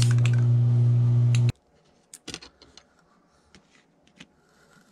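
A loud, steady electrical hum with scratchy clicks over it cuts off abruptly about a second and a half in. After that come a few faint light taps and clicks as knife blades are handled on a plastic cutting mat.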